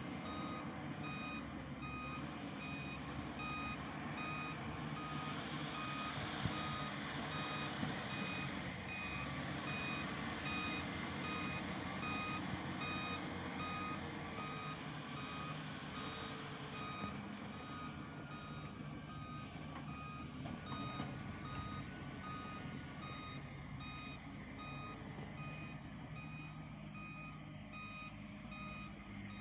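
Reversing alarm of heavy earthmoving equipment beeping in an even repeating rhythm, over the steady running of diesel engines.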